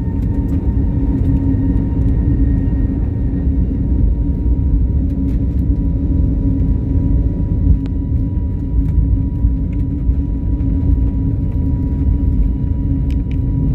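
Airliner engines running with a steady low rumble and a steady hum, a few faint clicks and rattles over it.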